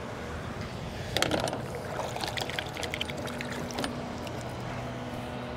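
Water splashing at the side of a small boat about a second in, followed by scattered light clicks and rattles over a steady outdoor background.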